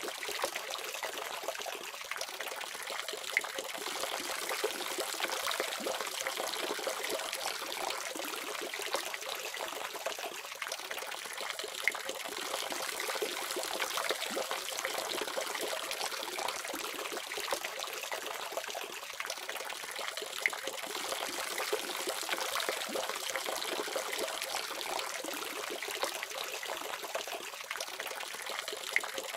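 Water running steadily from a faucet: an even splashing rush with a few brief louder splashes.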